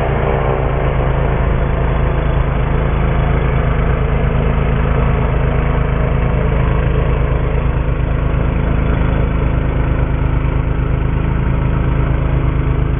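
An engine idling steadily: a low, even drone with fast regular firing pulses and no change in speed.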